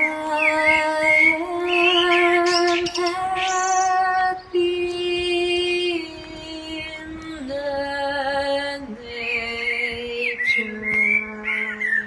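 Slow melody of long, evenly held notes, sung or played on a synthesizer, with birds chirping faintly at the start and again near the end.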